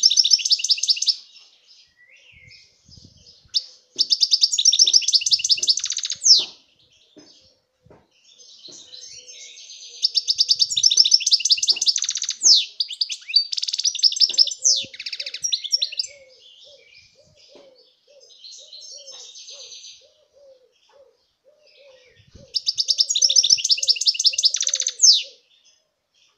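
A caged European goldfinch singing: fast, twittering, trilled song phrases in four bouts, the longest about six seconds, with softer twitters in the pauses between them.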